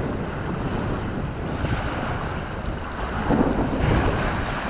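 Strong wind rushing and buffeting the microphone, a steady roar of noise with heavy low rumble that swells about three seconds in.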